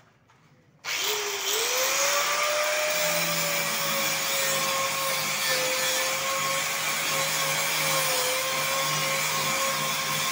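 Handheld angle grinder switched on about a second in, its motor winding up in pitch and then running steadily as the disc is held against the edge of an iron gate frame, grinding and smoothing the steel.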